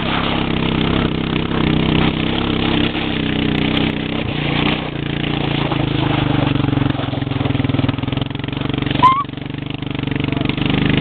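ATV engine running steadily, its note and level shifting a few times with the throttle. A short, high rising sound cuts in about nine seconds in.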